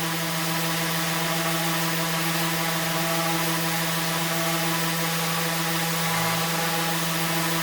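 Electric woodworking power tool running at steady speed: a constant motor whine with a strong airy hiss.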